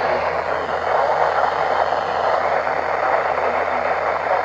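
Loud, steady static hiss from a NOAA weather radio receiver, with a low hum underneath and no clear speech coming through: the broadcast signal is weak or breaking up.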